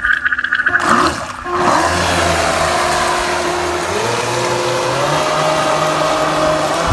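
Remote-control boat speeding off across the water towing a cast net: a rush of water and spray under a steady motor whine that steps up in pitch about four and five seconds in.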